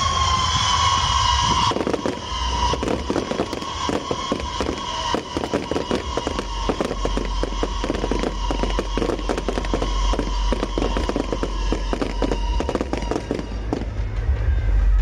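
Wind-fire wheel (風火輪) fireworks going off: a steady, shrill whistle that sags slightly in pitch and fades out near the end, over dense, rapid crackling and popping.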